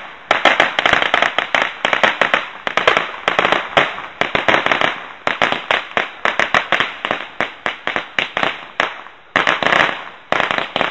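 A string of firecrackers going off in a rapid, irregular chain of sharp cracks, several a second, with a couple of brief pauses near the end.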